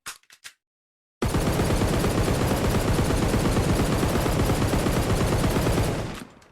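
Gun sound effect: three quick clicks, then about a second in a long burst of rapid automatic gunfire that runs for about five seconds and fades out.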